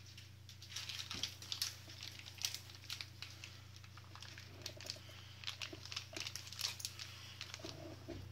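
Clear plastic bags of raw minced cat food being handled, squeezed and laid down on kitchen paper, crinkling in many short, irregular crackles, with the paper towel rustling. A steady low hum runs underneath.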